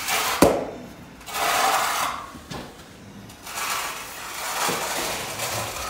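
Ceramic floor tile being set into combed thinset mortar: a sharp click about half a second in as it goes down, then repeated gritty scraping and rubbing as it is pressed and shifted into place.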